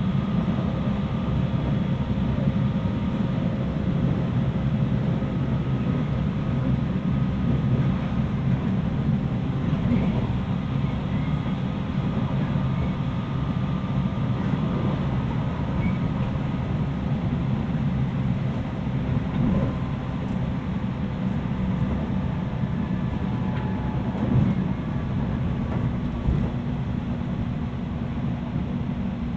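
Cabin sound of a 719 series AC electric multiple unit running between stations: a steady rumble of wheels on rail with faint steady whining tones, the 'jet'-like sound that marks this car as an unusual-sounding one to the recordist, who is unsure whether it is normal for the class. There are two short knocks near the end.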